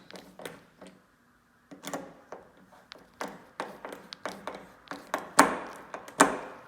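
Light clicks and taps of a door latch being handled and its screws worked, then two louder knocks near the end, about a second apart, as the door is pushed shut against the latch.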